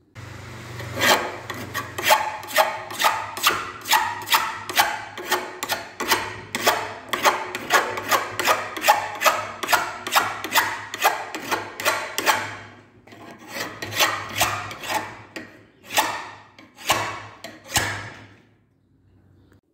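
Steel knife blade being scraped by hand in regular back-and-forth strokes, about two a second, then a short pause and a few slower strokes near the end.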